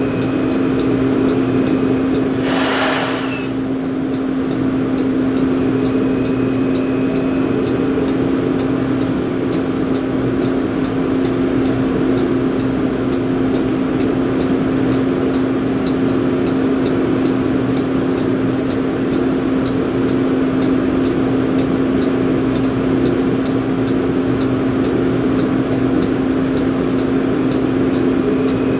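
Drilling rig floor machinery running steadily: a loud engine-and-hydraulic drone with a strong steady hum, faint regular ticking, and a short hiss about three seconds in.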